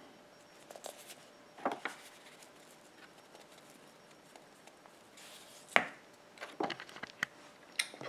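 Quiet handling sounds: a few light clicks and taps as a jar of chicken bouillon powder is opened and shaken over an instant-noodle cup, with one sharper click a little past halfway.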